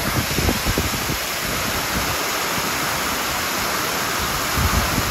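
Heavy downpour of rain mixed with hail, a steady dense hiss, with low gusty rumbles in the first second or so.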